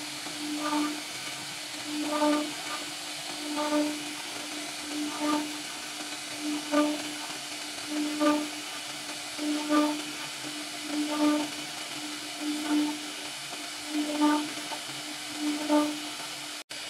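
CNC router spindle cutting a twisted rope pattern into a wooden door panel: a steady high cutting noise, with a pitched hum that swells about every second and a half.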